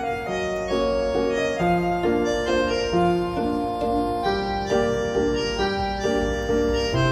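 Instrumental background music: a keyboard melody of short notes, changing two or three times a second over a low accompaniment.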